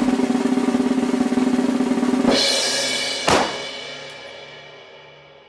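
Music sting: a held chord with sharp drum hits, the last about three seconds in, fading out steadily near the end.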